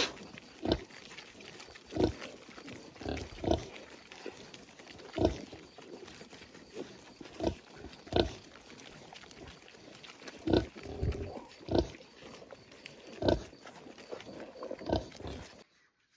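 Kunekune pigs grunting: short separate grunts, roughly one a second, some in quick pairs. It cuts off suddenly near the end.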